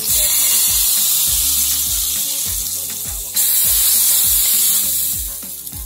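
Hot oil with spluttered mustard seeds and curry leaves poured into a pot of coconut-milk chicken curry, sizzling loudly. The sizzle dips about three seconds in, surges again as more is poured, and dies away near the end. Background music with a steady beat runs beneath.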